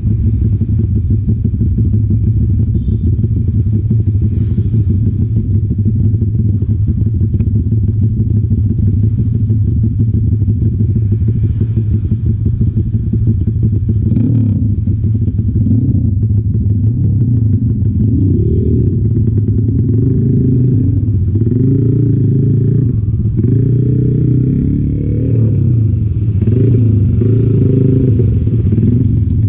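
Bored-up 175 cc Honda Sonic's single-cylinder engine idling steadily, then revving up and dropping back again and again through the gears as the motorcycle pulls away, about halfway through.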